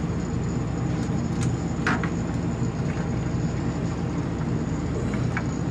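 Steady low machine hum, with a few light clicks and taps of handling: two about a second and a half to two seconds in, and one near the end.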